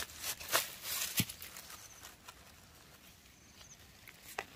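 Grass rustling and a knife scraping and prying in stony soil, busiest in the first second or so, with a dull knock about a second in and a sharp click near the end.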